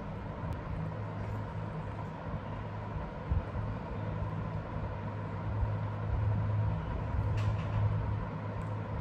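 Steady low background hum with a faint steady tone above it, and a few faint taps.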